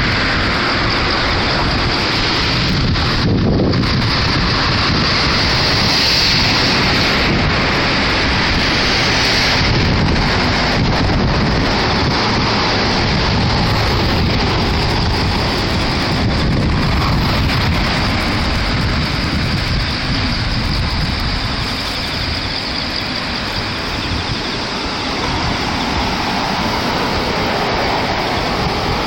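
Floodwater of the typhoon-swollen Tenryū River rushing in a loud, steady, unbroken noise, with wind buffeting the microphone.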